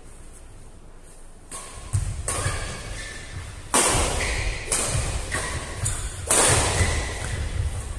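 Badminton rally in a large echoing hall: several sharp racket strikes on a plastic shuttlecock, over players' footsteps thudding on the court. It starts after a quiet second or so.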